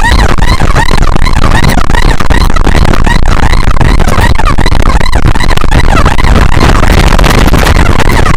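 Several electronic yelp sirens sounding at once, each a quick rising-and-falling tone repeated a few times a second, overlapping into a jumble, over a heavy low rumble.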